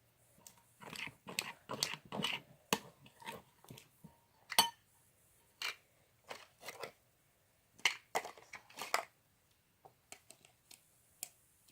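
Irregular crinkling and crunching handling noises with sharp clicks, coming in short scattered bursts.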